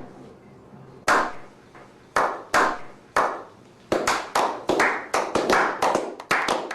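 A series of sharp percussive strikes, like claps or slaps: a few spaced about a second apart, then quickening to about four a second.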